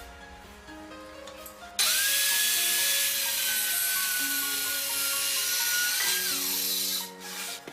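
Circular saw switching on about two seconds in and cutting along its guide rail for about five seconds, a steady high motor whine that sags slightly under load, then spinning down near the end; background music plays throughout.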